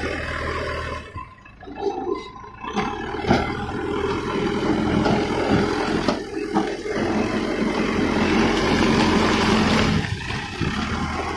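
Backhoe loader's diesel engine working under load, its revs rising and dropping as the front loader bucket pushes and tips broken stone rubble. Stones clatter, with a few sharp knocks around the middle.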